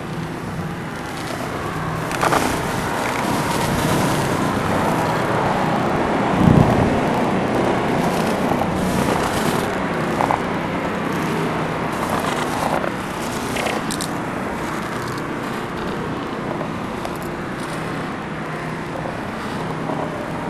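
Road traffic: a passing vehicle's noise swells over the first several seconds, then slowly fades.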